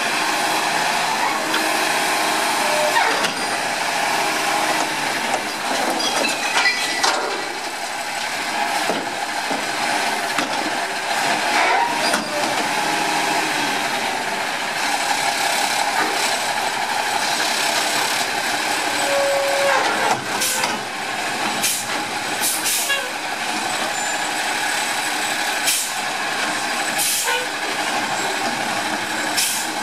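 New Way Mammoth front-loader garbage truck working its lift: engine and hydraulics running steadily as the forks raise a commercial recycling dumpster over the cab, empty it into the hopper and lower it again. Sharp clanks and bangs come in the second half, as the bin is emptied and set down.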